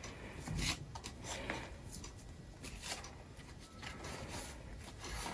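Faint rustling and rubbing with a few soft knocks: packaging and accessories being handled as they come out of a box.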